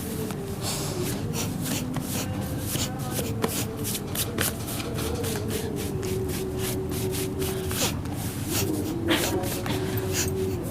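Hands rubbing and patting rapidly, many quick strokes in a row, with a low, drawn-out voice wavering underneath.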